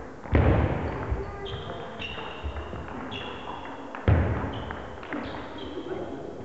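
Table tennis play in a large sports hall: two loud thuds about four seconds apart, each dying away in the hall's echo, with light ball knocks and short high squeaks between them.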